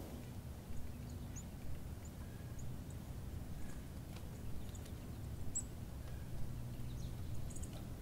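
White-tailed deer browsing on brush in snow: scattered soft clicks and crunches of twigs being nipped and chewed, over a low steady rumble, with a few faint high chirps.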